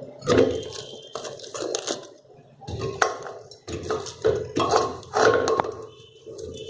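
Chopped vegetables and a bowl clattering against a steel pressure cooker as cauliflower, potato and pea pieces are tipped in. The knocks are irregular, several a second, and the metal rings faintly after some of them.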